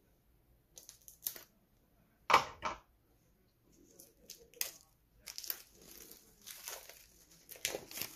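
Wrapping on a board-game component crinkling and tearing as it is unwrapped by hand. Scattered rustles, a louder one about two seconds in, then denser crackling through the second half.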